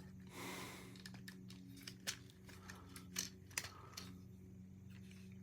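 Faint scattered clicks and taps of a plastic Transformers action figure's parts being handled and shifted during transformation, with a brief soft rustle near the start, over a steady low hum.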